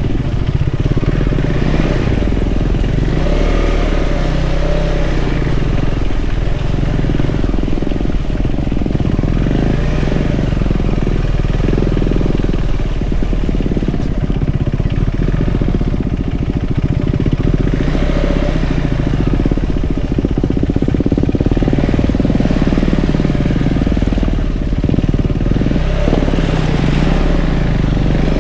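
KTM 390 Adventure's single-cylinder engine running at low speed on a dirt track. The revs rise and fall several times with the throttle.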